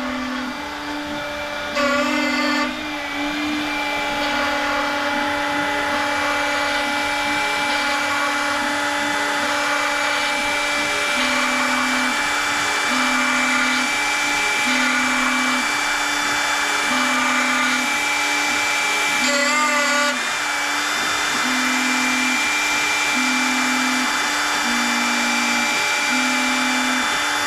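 CNC router spindle running steadily while it cuts wood, with a whine and a hum that dips briefly in pitch every second or two as the machine works along its passes.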